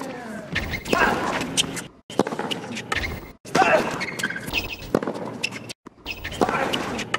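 Tennis rally on a hard court: a ball struck back and forth by rackets, sharp hits a second or so apart, with shoes squeaking on the court. The sound drops out briefly a few times.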